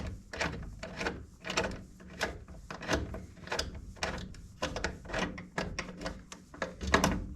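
Irregular clicks, knocks and scrapes of hand tools and metal parts being worked on a furnace during removal of its inducer motor, about two to three a second.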